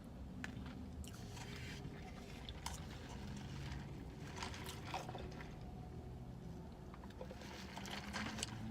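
Soft chewing and mouth sounds of a person eating, with scattered faint clicks and scrapes over a steady low hum.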